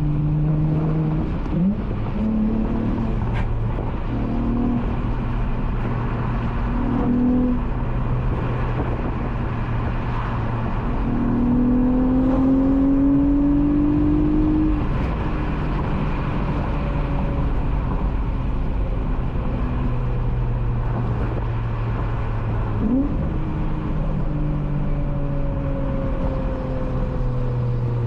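Honda J32A3 3.2-litre V6 with VTEC, breathing through a loud Skunk2 Megapower single-exit exhaust with the resonator deleted, pulling a six-speed manual Accord coupe. It cruises steadily between several short pulls that rise in pitch; the longest and loudest comes about 11 to 14 seconds in, and another short one near the end.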